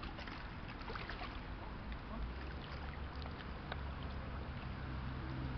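Riverside ambience: wind and water moving against the shore, with scattered small clicks. A low steady hum comes in about two seconds in.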